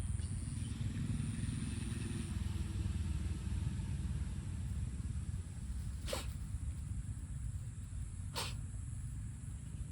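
Brown tabby cat sneezing twice, two short sharp sneezes a little over two seconds apart in the second half, over a steady low rumble.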